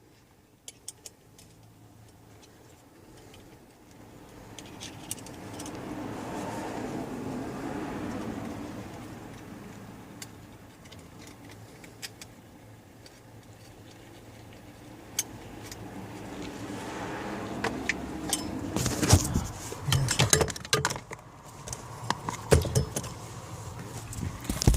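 Handling noises: scattered small clicks and rustling, then a run of louder clattering knocks and rattles in the last several seconds, as of hard parts or tools being moved about.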